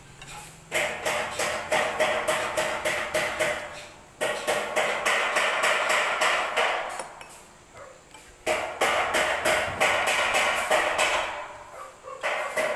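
Crackly crunching of crispy fried chicken being eaten and pulled apart, in several runs of a few seconds each with short pauses between.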